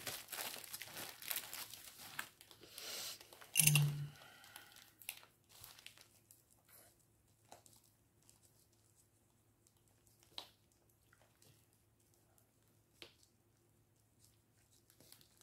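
Plastic packaging crinkling and rustling as it is handled, likely the small bags of diamond painting drills, with a brief louder noise about four seconds in. After that it goes quiet but for a few faint clicks and taps.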